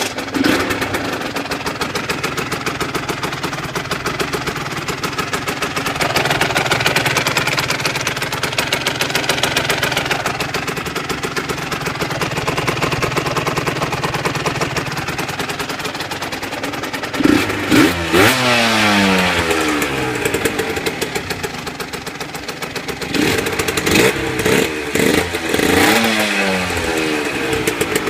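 Aprilia Tuono 125's single-cylinder four-stroke engine breathing through an aftermarket Arrow exhaust and ram air filter, idling steadily. About two-thirds of the way in it is revved up and falls back, and near the end it is blipped several times in quick succession.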